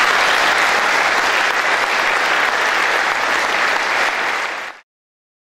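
Large audience applauding, dense steady clapping that cuts off abruptly near the end.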